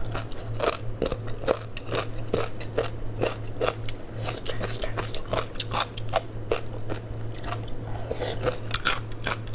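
A person chewing crunchy food close to the microphone, crisp crunches about two to three times a second, over a steady low hum.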